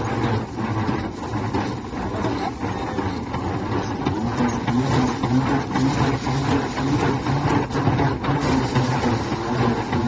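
Rice thresher running with a steady low hum as bundles of rice stalks are held into its drum to strip off the grain.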